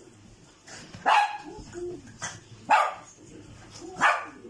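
Poodle puppies barking during rough play: three loud, sharp barks about a second and a half apart, with a softer yap and low grumbling between them.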